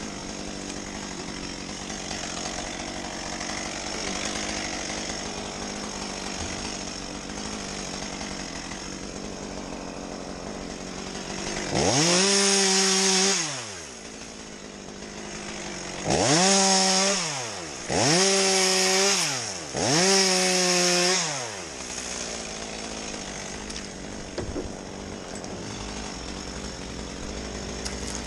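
Two-stroke chainsaw revved to full throttle four times, the pitch climbing fast, holding for a second or two, then dropping back, over a steady engine hum.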